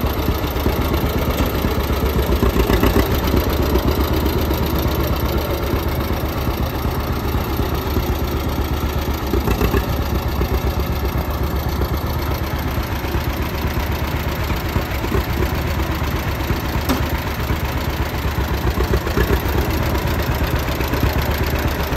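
1953 John Deere AR's two-cylinder engine running steadily as the tractor is driven, its exhaust beat keeping an even rhythm.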